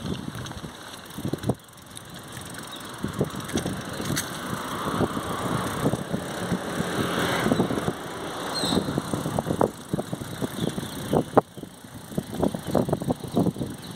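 Mountain bike rolling over cobblestones: rapid, irregular knocks and rattles as the tyres bump across the stones and shake the frame and handlebars, over a rushing noise that swells through the middle and eases off toward the end.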